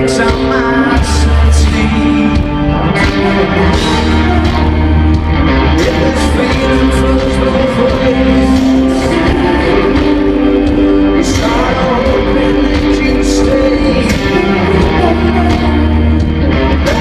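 Rock band playing live in an arena: loud amplified electric guitars, bass and drums with a sung lead vocal, as heard from the crowd. A deep bass line swells in long stretches under the riff.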